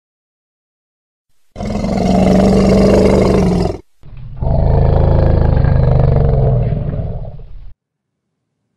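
An elephant calling twice: a loud call lasting about two seconds, then after a short pause a longer, deeper one that fades away.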